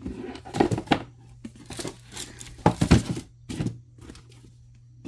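Handling noise as FILA sneakers and their cardboard box are moved about on a wooden floor: a string of short rustles and scuffs, the loudest about three seconds in.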